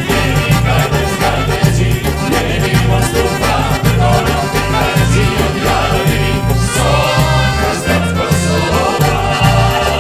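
Upbeat song with a steady pulsing bass beat and a singing voice.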